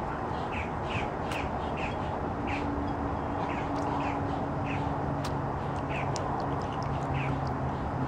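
A Quaker parrot splashing as it bathes in a shallow birdbath, with repeated short falling bird chirps, about two a second. A low steady hum comes in about two seconds in.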